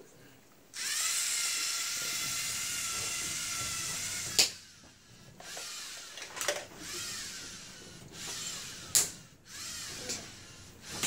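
Small wheeled robot's electric drive motors running with a geared whine, steady for about three seconds, then a sharp clack. Shorter runs of whine follow that rise and fall in pitch, broken by a few sharp clicks.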